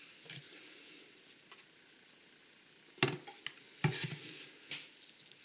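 Small close-up handling sounds: faint scraping, then two sharp clicks about three and four seconds in and a few lighter ticks, as a toothpick wetted with rubbing alcohol is worked in an iPhone 5S charging port.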